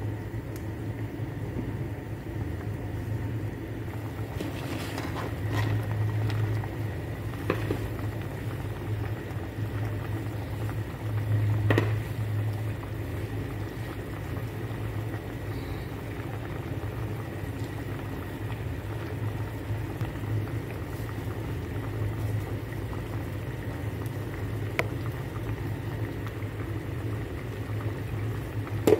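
A pot of milkfish sour soup (sinigang na bangus) boiling on a gas stove, bubbling steadily over a constant low hum. A few short knocks sound now and then.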